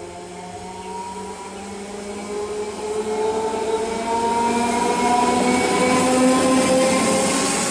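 Old-model EMU electric local train approaching and running past, its electric motors giving a whine that climbs steadily in pitch as the train gathers speed. Under it the rumble of wheels on rail grows louder as the train comes close.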